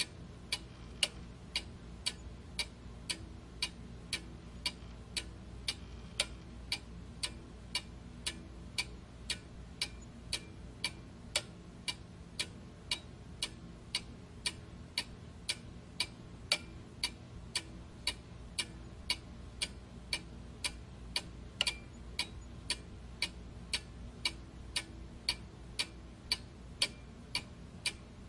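Steady, even ticking like a clock, about two sharp ticks a second, over a faint low hum.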